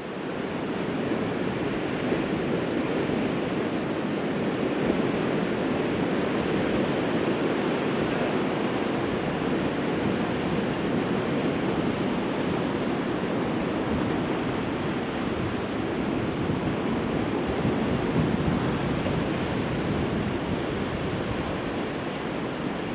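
Sea surf washing against a rocky shore, a steady rushing noise, with some wind on the microphone.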